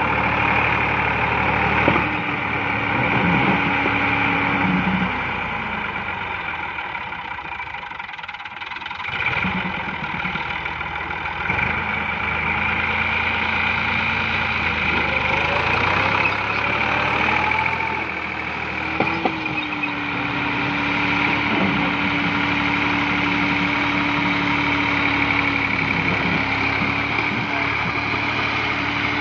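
Massey Ferguson 260 tractor's three-cylinder diesel engine labouring under a heavy load while dragging a loaded trolley through loose sand, pulling hard enough that its front wheels lift. Its revs sag twice and dip lowest about a third of the way in, then climb back a little past the middle and hold steady.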